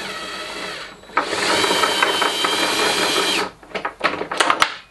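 DeWalt cordless electric screwdriver whirring as it turns a clamp's 8 mm threaded rod through an offset bit, in two runs: the first dies away about a second in, and a louder one starts just after and stops about three and a half seconds in. A few sharp clicks follow near the end.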